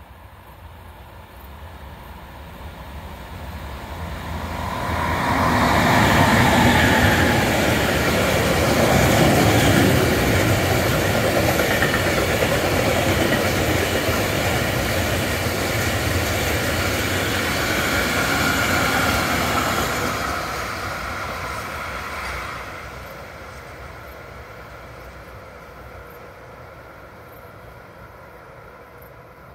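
Freight train of covered hopper wagons and tank wagons passing on the rails. It grows louder over the first few seconds, runs loud past for about fifteen seconds, then fades away a little after twenty seconds in.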